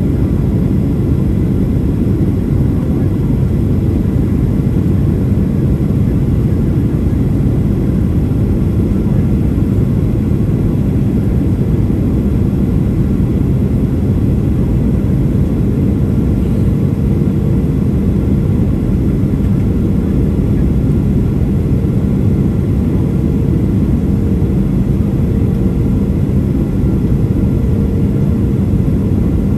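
Cabin noise of a Boeing 737-700 in flight during descent, heard from a window seat beside the wing: the CFM56-7B turbofans and rushing airflow make a steady low rumble with a faint constant hum.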